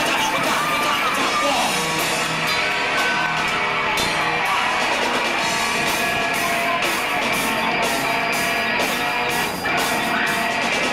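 Rock band playing live, with guitar and drums whose cymbal strikes fall in a steady beat.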